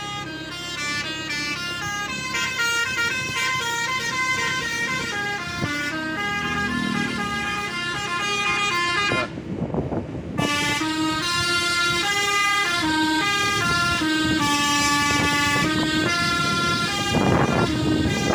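A tour bus's Basuri V3 'telolet' musical horn playing a tune of quickly changing notes, with a short break about nine seconds in. The bus's engine runs underneath.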